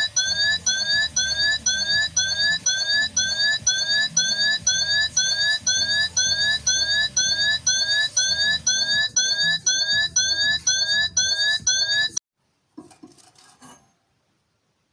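A repeating electronic chirp, each note a short rising sweep, about two and a half a second, that stops suddenly about twelve seconds in.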